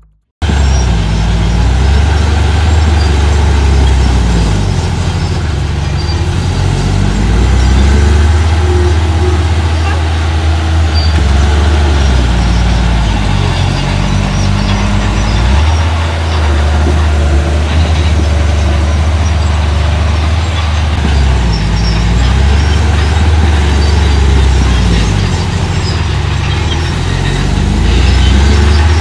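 Engine of small construction machinery running hard, its pitch rising and falling again and again as the revs change.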